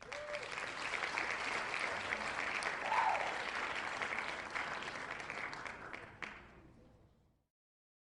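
Applause, a dense patter of many hands clapping that starts abruptly, then fades out over the last couple of seconds.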